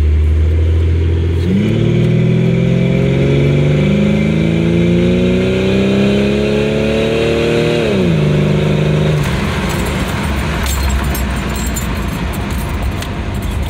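Jeep Cherokee XJ engine pulling through a 2.5-inch side-exit exhaust with a Nexus stainless muffler, heard from inside the cab with the windows down. The exhaust note rises steadily as the engine accelerates from low revs to around 3,000 rpm, drops sharply about eight seconds in as the revs fall, then settles under steady road and wind noise.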